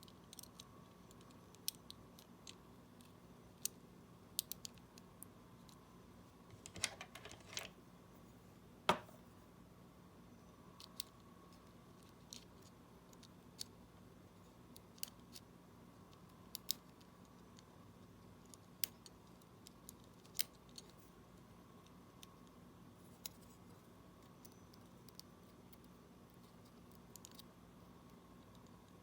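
Scattered small clicks and taps of hand work on a smartwatch's tiny parts during a button repair, with a sharper click about nine seconds in, over a faint steady hum.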